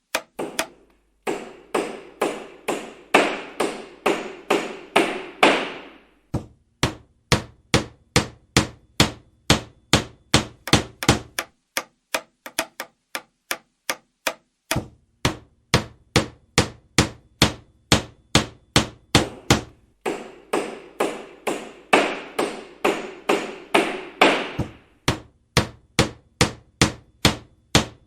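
Hammer striking wood in a steady rhythm, about two to three blows a second. In two stretches, near the start and about two-thirds of the way through, the blows ring fuller and run together.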